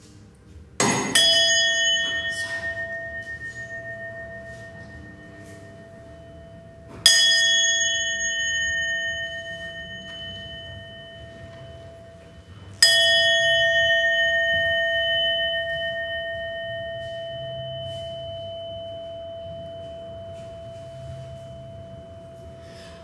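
A brass hand bell rung three times, about six seconds apart, the first a quick double stroke. Each stroke rings on one clear steady note with higher overtones and fades slowly, still sounding when the next stroke comes.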